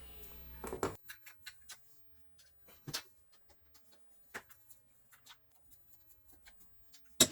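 Scattered light clicks and taps as screws are taken out of a washer drain pump's plastic housing and the parts are handled, with a sharper knock near the end.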